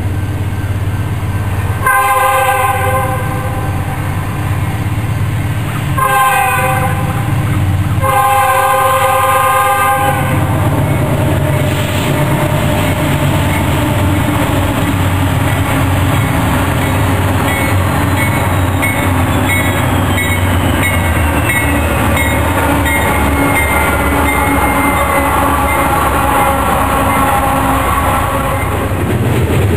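Freight locomotive air horn sounding three blasts, the last the longest, in the first ten seconds. Then the steady rumble of a double-stack container train passing close, with wheels clicking over rail joints in the second half.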